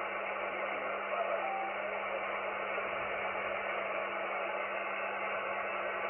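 Icom IC-706MKIIG transceiver's speaker giving steady receiver hiss while tuning the 40-metre band in lower sideband. The hiss is narrowed by the SSB filter, with a short whistle of a signal about a second in and a low steady hum underneath.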